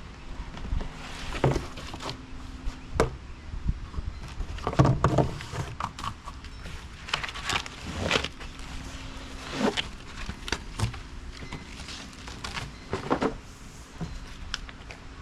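Irregular knocks, thumps and scrapes from unpacking a large boxed metal workbench, with its packing handled and shifted; the loudest cluster comes about five seconds in.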